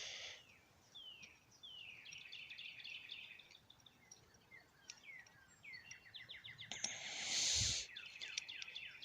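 Small birds chirping and trilling, repeated short falling calls and quick runs of notes. About seven seconds in, a louder rushing burst of noise lasts about a second.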